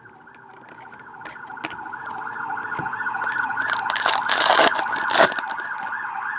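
Electronic warbling siren, used as a signal to hurry up, wailing about three times a second and growing steadily louder. A foil card pack is torn open about four to five seconds in.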